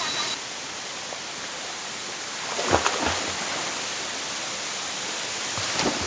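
Steady rushing of a waterfall and its stream, with a few short knocks about halfway through and again near the end.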